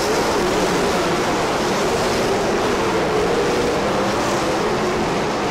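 Winged dirt-track sprint cars racing in a pack, their engines running hard at speed in a loud, steady drone with a faintly wavering pitch.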